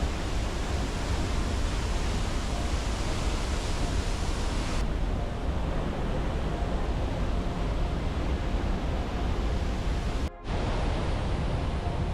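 Large waterfall roaring: a loud, steady rushing noise that turns duller suddenly about five seconds in and drops out for a moment near ten seconds.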